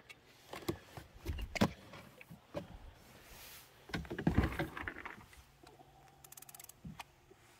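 Handling sounds of an angler fighting a fish from a boat: scattered knocks and rustles of rod, reel and jacket, loudest about four seconds in, then a quick run of fine clicks a little after six seconds.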